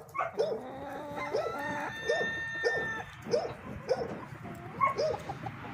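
Chickens clucking in a steady run of short, low calls, with a rooster crowing in the background between about one and three seconds in.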